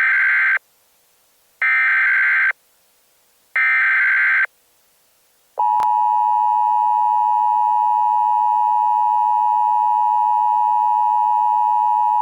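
Emergency Alert System header: three short, shrill bursts of data tones about two seconds apart, followed about five and a half seconds in by the steady two-tone attention signal that warns an emergency alert is about to be read.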